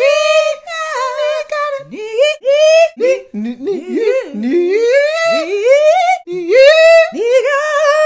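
People singing and humming without words in high, swooping voices, a continuous run of sliding vocal notes broken by short pauses.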